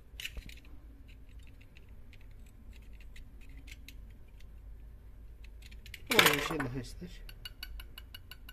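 Light metallic clicks and clinks from a chainsaw spark plug being handled against small steel hand tools: a flat blade and a spark plug wrench. Near the end the clicks turn into a quick, even run of about six a second.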